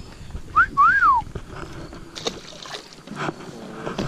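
Two short whistled notes: a quick rising chirp, then a note that rises and falls. After them come a few light knocks and handling noise on a boat.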